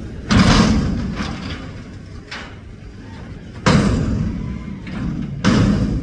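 A front-loader garbage truck (Mack with a McNeilus body) is dumping a dumpster held upside down over the hopper on its lift arms. The container slams against the arms and stops three times, just after the start, a little past halfway and near the end, with lighter knocks between, as it is shaken to empty it.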